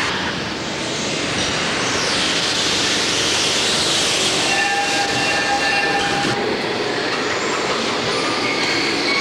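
Steady, loud rushing noise, with a few faint brief tones over it around the middle.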